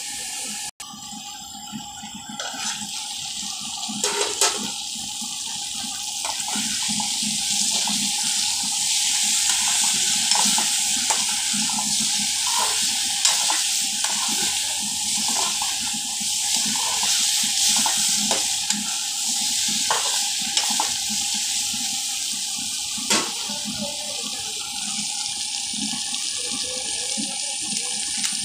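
Potato and green chilli pieces sizzling in hot oil in a metal kadai, a steady hiss. A few sharp clicks of a utensil against the pan are heard now and then.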